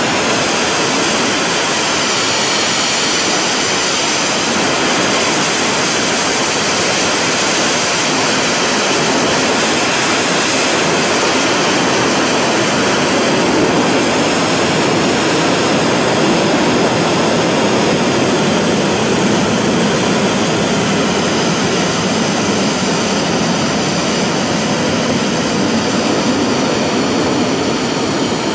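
Steady, unbroken roar of the KSLV-II (Nuri) third-stage 7-tonne-class liquid-oxygen/kerosene rocket engine in a long static firing, a loud rushing noise that does not let up.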